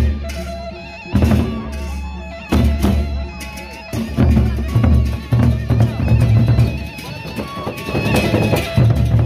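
Gendang beleq ensemble playing: large Sasak double-headed barrel drums beaten in a driving rhythm, with heavy low strokes about every second, under steady ringing pitched tones from the ensemble's metal percussion.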